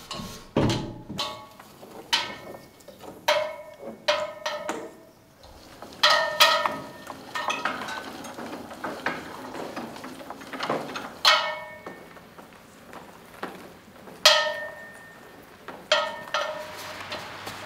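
Irregular metallic clanks and knocks, about a dozen, many with a brief ringing tone at the same pitch each time.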